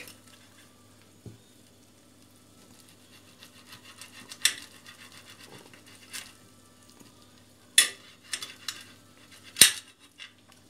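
Metal knife and fork cutting a baked crepe roll on a porcelain plate: scattered clinks and scrapes of cutlery against the plate, the two sharpest near the end, over a faint steady hum.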